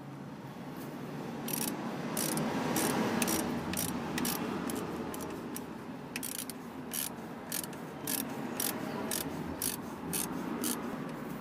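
Hand socket ratchet clicking in short irregular runs, roughly two clicks a second, over a soft handling noise, as it tightens the alternator adjusting bolt to tension the new alternator belt.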